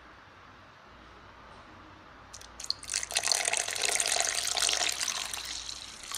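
Water poured from a steel vessel into a steel mixer-grinder jar of ground carrot paste, splashing for about three seconds and fading near the end. A few light clicks come just before the pour starts.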